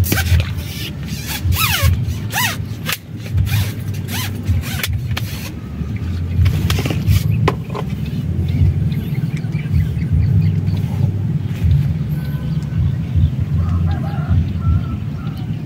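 A steady low rumble, with a dense run of rustling and clicking in the first half and a few short falling squeaks about two seconds in.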